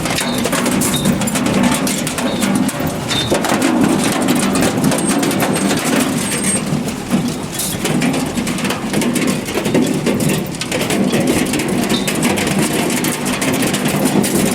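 Potato harvester at work stone picking: the machine runs steadily under a constant dense clatter of stones and soil rattling through it.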